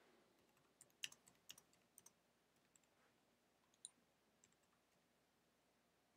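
Faint computer keyboard keystrokes: a quick run of clicks between about one and two seconds in, then a few single clicks.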